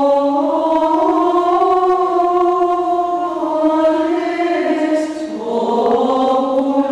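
Choral chant as background music: voices singing long, sustained notes that move slowly in pitch, with a new phrase entering about five seconds in.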